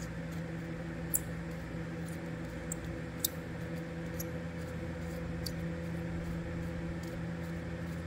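A spoke nipple being screwed by hand onto a new spoke in a dirt bike wheel: a few faint small metal clicks, two a little louder about a second in and just after three seconds, over a steady low hum.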